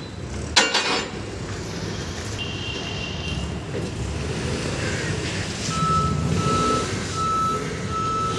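Steel railway wheel sets being levered along a truck's steel bed with a crowbar: a sharp metal clang that rings on about half a second in, then a low rumble as a wheel set rolls. An engine runs throughout, and from about two-thirds in a vehicle's reversing alarm beeps.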